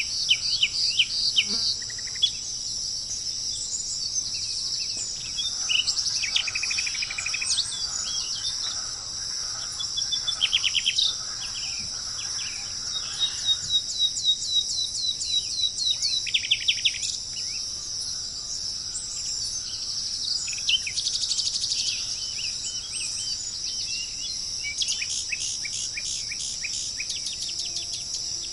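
Several birds calling in quick runs of high chirps and trills over a steady, high-pitched insect drone.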